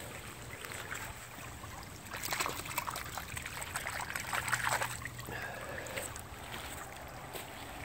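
A hand swishing and splashing in shallow creek water, in a run of splashes from about two seconds in to about five seconds in, with a faint steady hum underneath.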